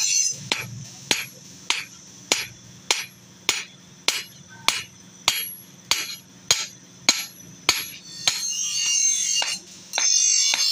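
Hand hammer striking a chaff cutter blade on a steel anvil, a ringing blow about every 0.6 seconds for about a dozen blows, in forging the dull blade back into shape. Music takes over for the last two seconds or so.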